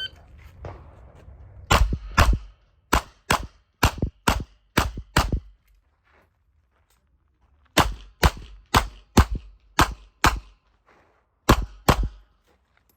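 Smith & Wesson 929 9mm revolver being fired rapidly: eight shots about half a second apart, a pause of about two and a half seconds for a reload, then eight more shots.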